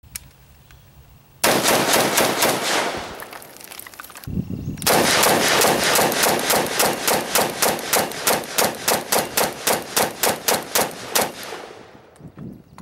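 SIG Sauer 556 rifle in 5.56 fired rapidly: a quick burst of shots, a short pause, then a long even string of shots, several a second, that stops near the end.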